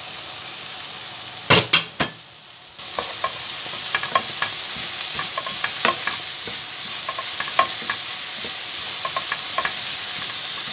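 Diced carrot, onion and garlic sizzling in oil in a non-stick frying pan, stirred with a wooden spoon that ticks and scrapes against the pan. A few sharp knocks come about one and a half seconds in, and the sizzle briefly dips before picking up again.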